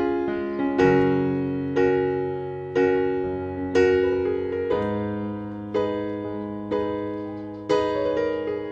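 Background music: a piano-like keyboard playing slow chords, about one a second, each struck and then fading.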